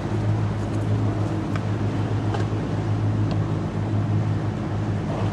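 Boat engine running steadily: an even, low drone.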